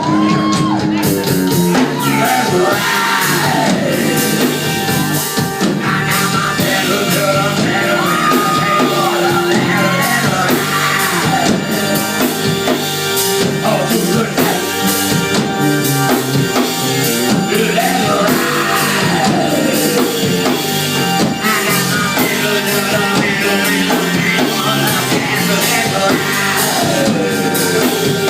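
Rock-soul band music in an instrumental break between verses: a lead line sliding and bending in pitch over a steady band accompaniment.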